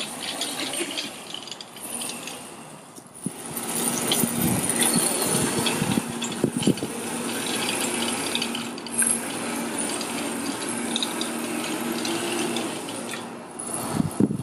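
Pulse Performance EM-1000 kids' electric motorcycle riding across a grass lawn: a steady low motor hum with clicking and rattling over a rushing noise. The hum sets in about four seconds in and fades near the end.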